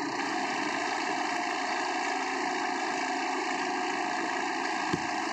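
Kubota tractor's diesel engine idling steadily, with a single short knock near the end.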